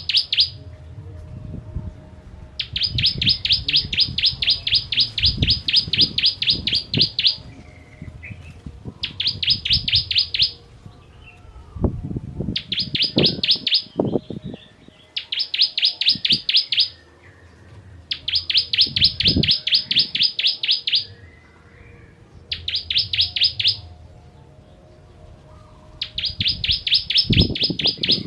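Ciblek kristal (a prinia) singing: phrases of fast, evenly repeated sharp high notes lasting one to several seconds each, broken by short pauses. Faint low thumps sit underneath.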